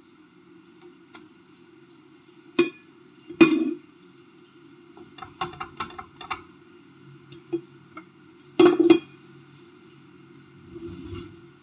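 Utensils knocking and clinking against a frying pan and dishes: a few sharp knocks, a quick run of clicks about halfway through, and another loud knock a little before the end. A steady hum runs underneath.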